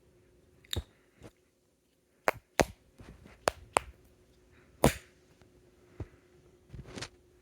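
About nine sharp clicks and taps at irregular intervals, from a headphone plug being handled and pushed at a jack that isn't working properly. A faint steady hum runs underneath.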